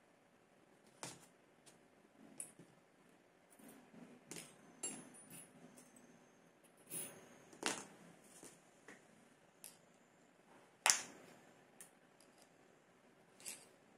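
Metal spray gun parts and hand tools being handled during disassembly: scattered light clicks and clinks as parts are knocked together and set down on cardboard, the loudest about eleven seconds in.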